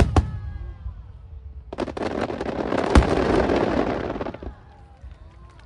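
Aerial fireworks: the last bangs of a rapid volley right at the start, then after a short lull a dense crackling, hissing burst that swells, with one sharp bang about three seconds in, and dies away near the end.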